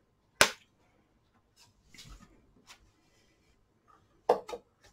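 Plastic cutting plates and a die being handled on a manual die-cutting machine: a sharp click just under half a second in, faint sliding and ticking, then two knocks in quick succession near the end.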